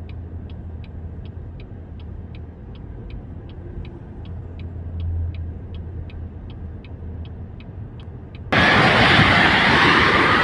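A steady low hum with a light, even ticking about three times a second. About eight and a half seconds in, it switches abruptly to a loud, even rushing noise.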